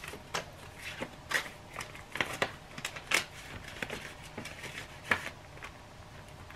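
Hands handling paper banknotes and a plastic binder pouch: irregular rustling, crinkling and light clicks.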